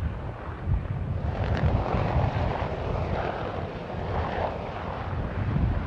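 Bell H-1 family military helicopter running on the ground with its rotor turning: a steady, low rumble of rotor and turbine noise.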